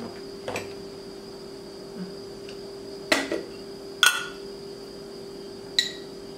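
Sharp clinks of a metal spoon against a glass jar while baking soda is spooned out, four in all, the loudest about four seconds in, each ringing briefly. A steady background hum runs underneath.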